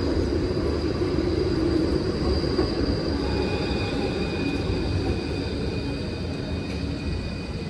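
A rail vehicle running, a steady low rumble with thin high whining tones over it, easing off a little toward the end.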